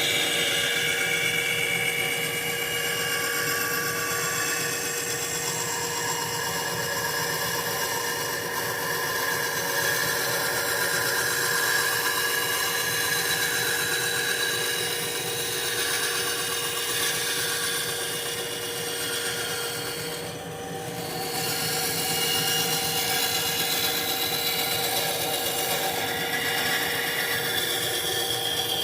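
Benchtop bandsaw running and cutting a curved line through a 2x4, with a steady motor hum and a blade whine that drifts in pitch as the wood is fed. The cut eases off briefly about two-thirds of the way through.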